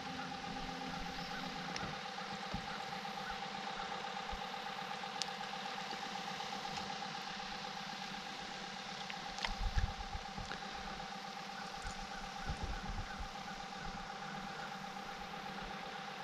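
Electric trolling motor running steadily: a constant mid-pitched whine over a low hum, with a few soft knocks a little before the middle and again later.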